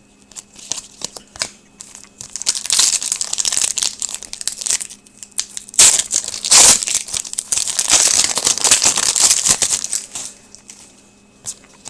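Foil wrapper of a hockey card pack crinkling and crumpling as it is handled and torn. A few light clicks come first, then steady crackling starts about two seconds in and stops near the end.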